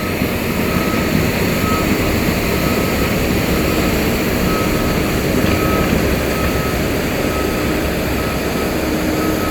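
Engine of a machine-mounted broom sweeper running steadily at working speed as it sweeps up asphalt millings, a loud even rumble and rush. A faint short beep repeats at an even pace, about every 0.7 seconds.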